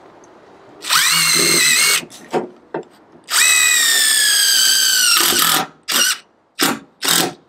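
Cordless impact driver sinking self-drilling winged screws through plywood into a steel trailer frame. It makes two long runs with a steady motor whine, the second whine falling slightly in pitch, then three short trigger bursts near the end.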